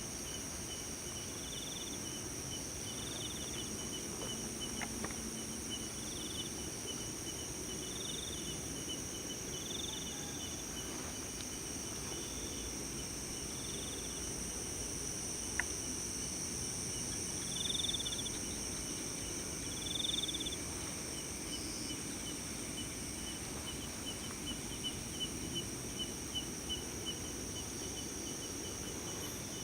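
Night-time insect chorus: a steady high-pitched trilling, with another insect chirping in short pulses every second or two, over a low hiss. A single faint click about halfway through.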